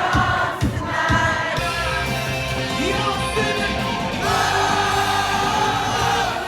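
Live bar music with a group of people singing along together, over a thumping beat at first, then ending on one long held note.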